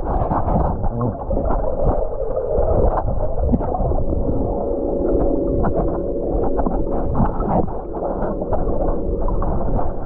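Muffled rumbling and bubbling of water heard with the microphone underwater, with scattered sharp clicks and a steady hum.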